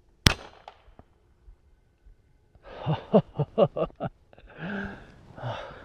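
A single shot from an FX M3 compact PCP air rifle: one sharp crack about a quarter second in, followed by two faint ticks. It is the shot that downs the squirrel. A few seconds later come a man's breathy voice sounds.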